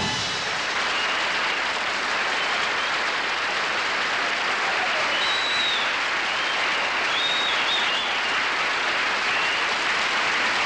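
Studio audience applauding steadily, with a few high whistles over the clapping around the middle.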